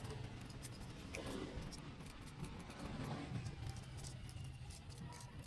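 Scattered light clicks and scraping from hand work on engine parts, over a faint low hum.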